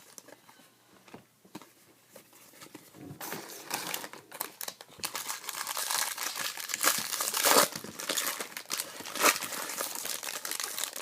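A 2015 Bowman Jumbo baseball card pack's wrapper being crinkled and torn open by hand: a dense crackling rustle that starts about three seconds in and grows louder, with sharp louder crackles around seven and nine seconds in.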